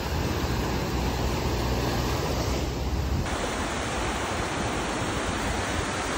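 Small waves breaking and washing up onto a sandy beach: a steady, even rush of surf.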